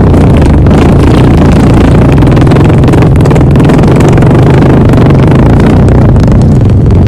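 A long, loud fart sound: one continuous low, buzzy blast that holds without a break.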